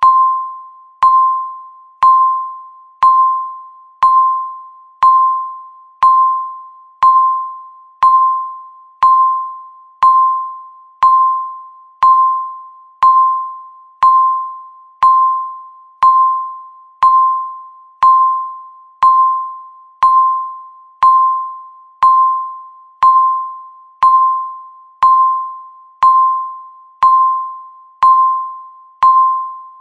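Countdown timer beep: a single electronic tone sounding once a second, each one striking sharply and fading away before the next.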